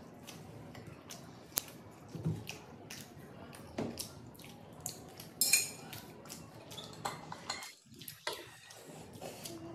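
Eating sounds of people chewing pizza, with scattered light clicks, taps and knocks of a glass water bottle and other things being handled on a table; the loudest is a short crackly burst about halfway through.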